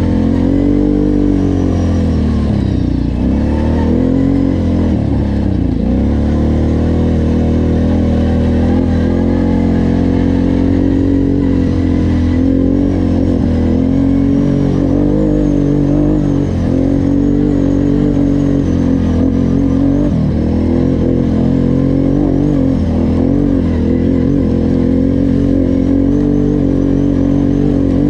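Off-road vehicle engine running close to the microphone. Its pitch dips and rises with the throttle several times in the first few seconds, then holds fairly steady.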